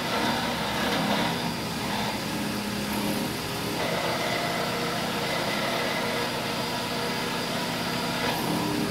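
Small Enco benchtop milling machine running with its spindle at about 2,000 to 3,000 rpm, the end mill cutting down into the flared head of a wheel stud set in a hub: a steady motor hum with cutting noise over it. The noise changes a little about four seconds in and again near the end.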